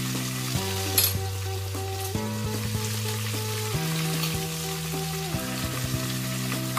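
Battered squid rings frying in hot oil in a nonstick frying pan, a steady crackling sizzle, stirred with a wooden spatula; a sharp click about a second in. Background music with sustained chords changing about every second and a half plays over it.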